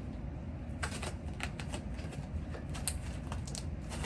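Small irregular clicks and ticks of slime and its containers being handled at a table, starting about a second in, over a low steady background hum.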